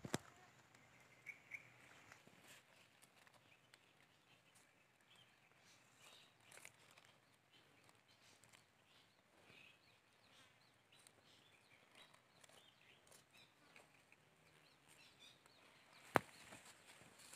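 Near silence: faint scattered scrapes and pats of hands pressing loose soil around leek seedlings, with a sharp click at the very start and another near the end.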